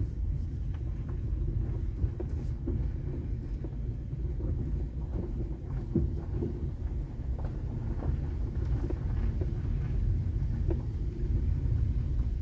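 Steady low rumble of a Mazda 5 rolling slowly over a gravel road, heard from inside the cabin: tyre and engine noise with scattered faint ticks of gravel.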